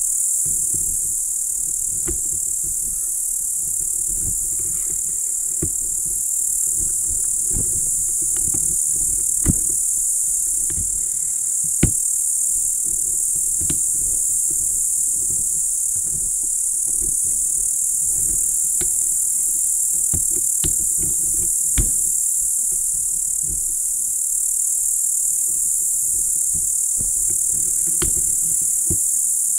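Crickets chirring continuously in a high, steady band, over an uneven low rumble with a few sharp clicks.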